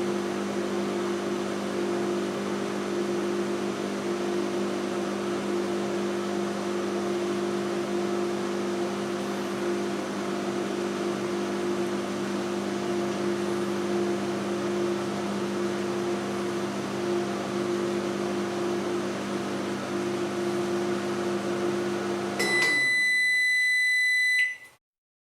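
Microwave oven running with a steady hum; near the end the hum stops and the timer sounds one long, high beep of about two seconds, signalling that the cooking cycle is done.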